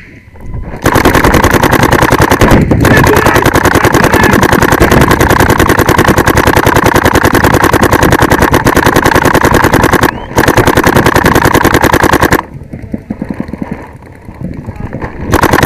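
Paintball marker firing a long, rapid, continuous stream of shots, breaking off briefly twice. Near the end the firing drops to softer, scattered shots for about three seconds, then loud rapid fire starts again.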